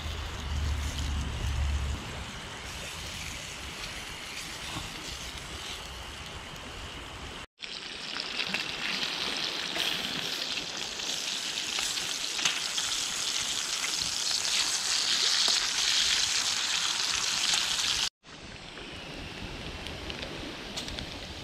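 Bacon sizzling and spitting in hot fat in a frying pan. The sizzle is loudest and brightest in a long middle stretch, and it breaks off abruptly twice.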